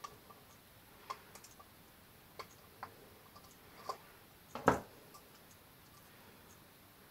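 Small scattered clicks and taps of a screwdriver and hands working the screw terminal block of a plastic fire-alarm sounder, with one louder knock about two-thirds of the way in. The siren itself is not sounding.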